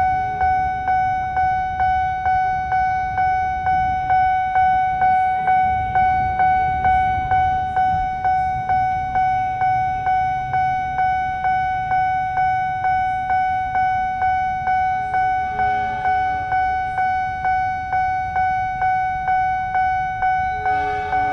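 Railway level-crossing warning bell ringing steadily, about two dings a second, each ding fading before the next. It signals that the crossing is active and the barrier is down for an approaching train.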